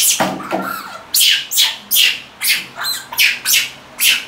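A wet baby monkey screeching in a rapid series of short, shrill cries, about two or three a second, while it is washed under the shower.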